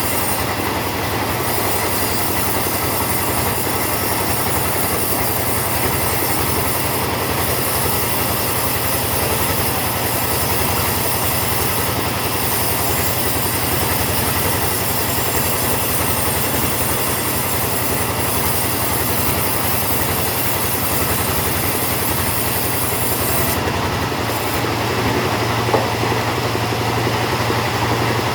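Two-stroke chainsaw running hard under load, cutting through teak wood in a steady, continuous grind. Near the end the cutting noise drops away and the engine runs on at a lower, steadier hum.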